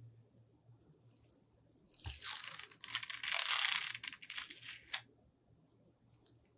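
Clear plastic blister packaging being torn open by hand: a noisy rip of about three seconds, starting about two seconds in with a low knock and cutting off suddenly.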